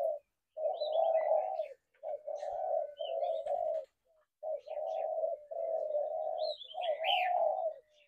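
Spotted doves cooing: a run of low coo notes, each about half a second to a second long, following one another with short gaps, with faint high chirps of small birds over them.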